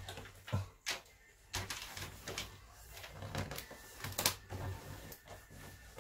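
Tape being pulled and pressed by hand onto flexible plastic conduit: short, scratchy rips and rubs at irregular intervals.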